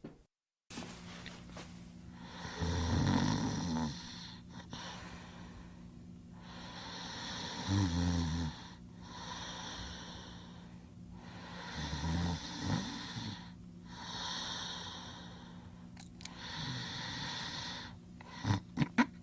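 Slow, steady snoring voiced for a sleeping cartoon character: a low rasping snore about every four to five seconds, with a breathy hiss between snores. A few short, sharp sounds come near the end.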